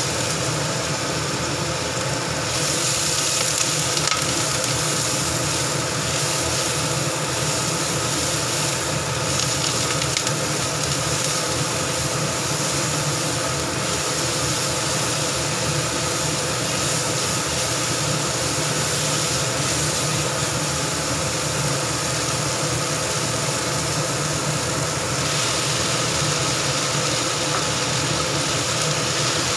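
Sliced shiitake mushrooms, then onion and bell peppers, sizzling steadily in hot oil in a wok as they are stir-fried.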